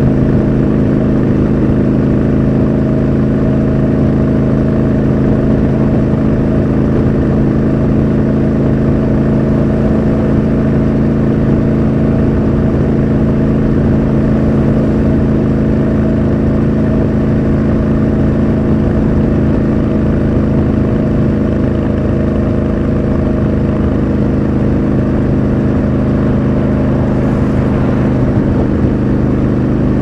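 Triumph Scrambler 1200 XC's 1200 cc parallel-twin engine running steadily, holding nearly constant revs while the motorcycle cruises.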